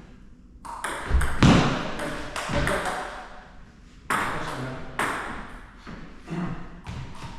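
Table tennis rally: the ball clicking sharply off bats and table many times, with some heavier thuds among the hits.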